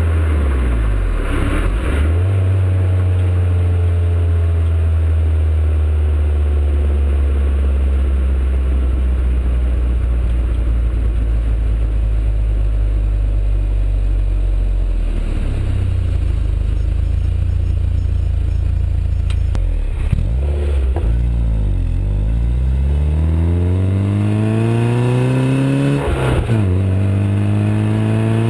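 Peugeot 205 GTI 1.9's four-cylinder engine through its stock exhaust. It runs at low, steady revs for much of the time, then revs up repeatedly near the end, with brief drops between pulls.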